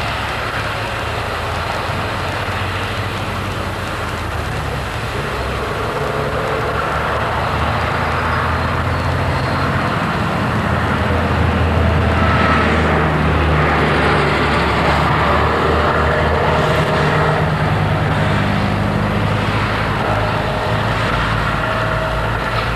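Farm tractors running steadily as they pull round balers through hay. The drone gets louder for a while near the middle.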